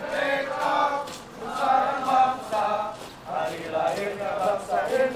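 A group of voices singing a marching chant together in unison, in short rhythmic phrases.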